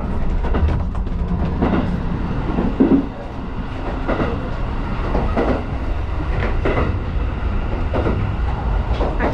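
Running noise inside a moving Resort Shirakami train carriage: a steady low rumble, with soft knocks every second or so.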